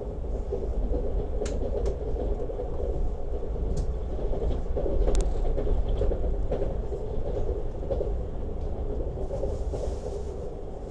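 Wheels of a Lastochka (Siemens Desiro RUS) electric train rumbling steadily on the rails at speed, with a few short sharp clicks; it grows louder towards the middle and eases off near the end.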